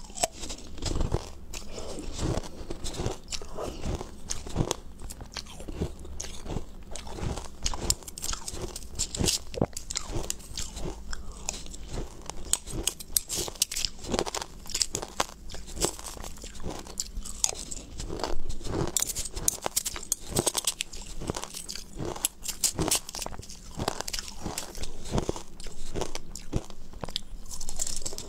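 Close-up crunching and chewing of mouthfuls of crushed ice dessert, a dense run of crisp, irregular crackles as the ice is bitten and ground between the teeth.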